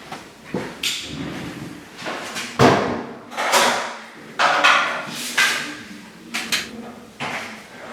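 A series of about seven sharp knocks and clicks, each followed by a short rattle or scrape, as a strip-light fitting's tube and starter are handled and swapped for LED ones.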